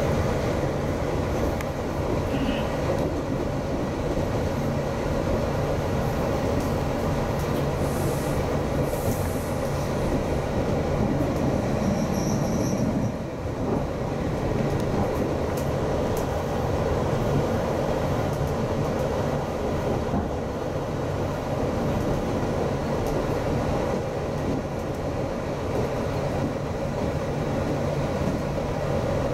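Steady running noise of a GO Transit commuter train, heard from inside a passenger coach as it travels along the line. A faint, brief high squeal comes about twelve seconds in.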